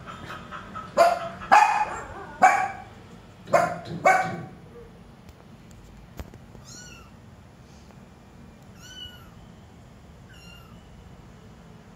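Small long-haired dog barking five times in quick succession, then three faint, short, high-pitched squeaky calls spaced a second or two apart.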